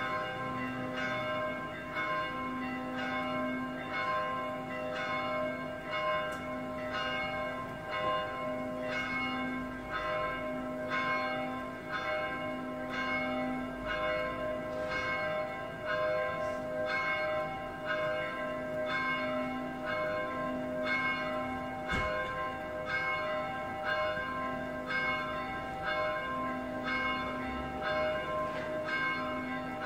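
Two church bells swung full-circle (a distesa) in alternation, ringing the noon peal: a steady run of evenly spaced strokes, each leaving a ringing hum under the next.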